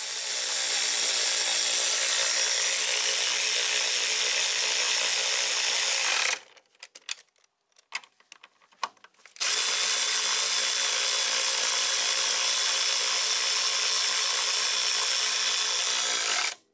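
Handheld power tool running at a steady pitch in two long runs of about six and seven seconds, with a few clicks in the pause between them.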